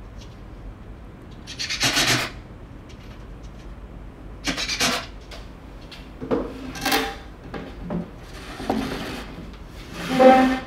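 Plywood panels sliding and scraping against each other and the workbench as a shelf is pushed into place: about five short scrapes, the last near the end the loudest.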